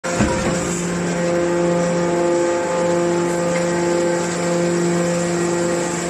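Hydraulic scrap-metal baler running, its power unit giving a steady, even hum, with a single clunk just after the start.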